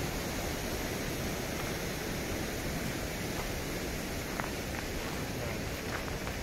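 Steady rushing outdoor noise, even from the low end to the top, with a few faint clicks in the second half.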